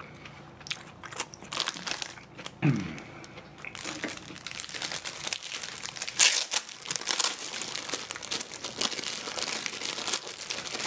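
Plastic food wrapping crinkling and rustling, busier and denser from about four seconds in. Before that there are scattered clicks and a short falling tone.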